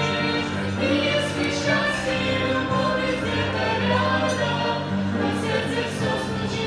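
Choir singing a Christian wedding song with instrumental accompaniment.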